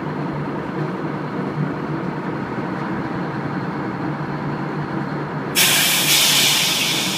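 Tugboat's diesel engine running with a steady drone. About five and a half seconds in, a loud hiss starts abruptly and then slowly fades.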